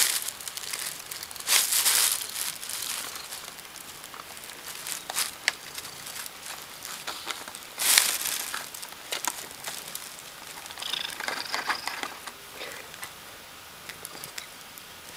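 Plastic bags and a cardboard food box crinkling and rustling as a cat noses into the box. It comes in uneven bursts, loudest about two seconds in and again around eight seconds, with smaller crackles between.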